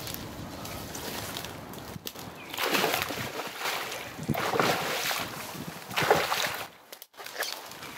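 A large hooked pike thrashing at the surface, splashing the water in three bouts of about a second each, the loudest near the end.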